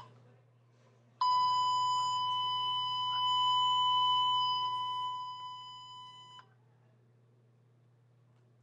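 Censor bleep: one long, steady, high electronic beep starting just over a second in and lasting about five seconds, fading out over its last two seconds. It blanks out the swearing that answers "what I have to say to those people".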